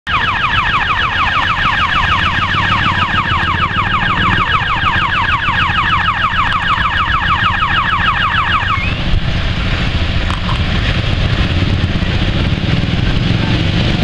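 Electronic warning siren sounding in rapid rising sweeps, about five a second, then cutting off about nine seconds in, over the steady low running of a small diesel locomotive engine.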